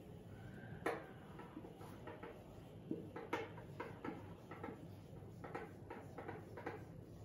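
Marker pen writing on a whiteboard: a string of irregular short taps and strokes as letters are formed, over a faint steady low hum.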